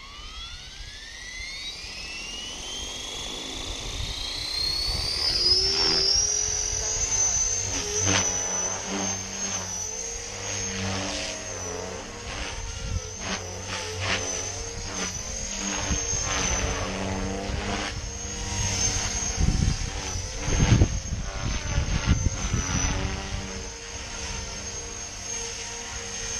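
GAUI X3 electric RC helicopter with a brushless motor on 6S, spooling up: a motor whine climbs over about six seconds and then holds steady. The rotor then runs at medium head speed through 3D flight, its whir rising and falling with the manoeuvres. Low buffeting hits the microphone around two-thirds of the way through.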